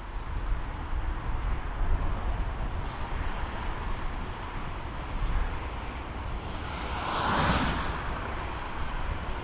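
Distant jet engines of an Airbus A300 freighter rolling along the runway: a steady rushing hiss that swells briefly about seven seconds in. Strong gusty wind rumbles on the microphone underneath.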